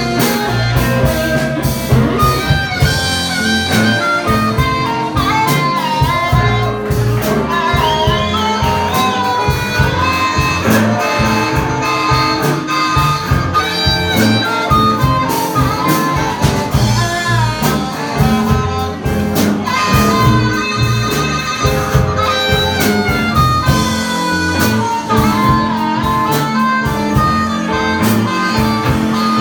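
Live blues band playing an instrumental break: a lead instrument solos with bending, wavering notes over bass and drums keeping a steady beat.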